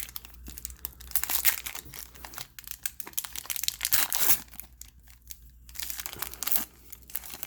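Crinkling and rustling of a trading-card pack wrapper and cards being handled, in irregular bursts.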